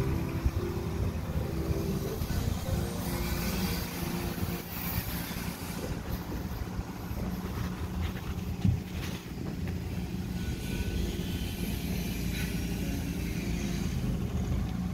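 An engine running steadily with a low rumble, as from construction equipment working on the graded site.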